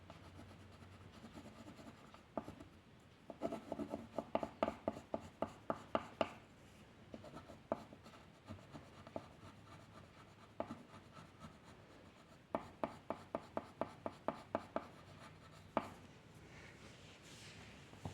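Drawing tool stroking on paper: quick short strokes at about five a second in two runs, with single strokes between.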